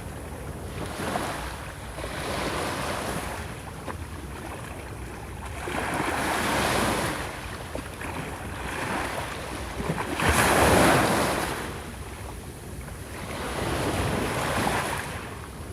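Surf breaking on a sandy beach: waves wash in and draw back in repeated swells every few seconds, the loudest break about ten seconds in.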